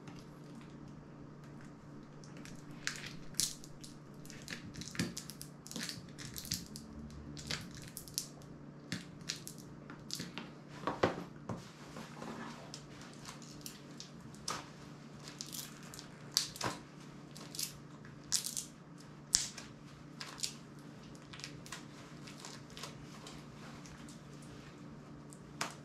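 Irregular clicks and crackles of a thin pry tool and fingers working at the glued-in battery of an opened smartphone, whose pull tabs have broken so the battery will not come out. They come in scattered bursts through most of the stretch and stop a few seconds before the end, with one last click near the end.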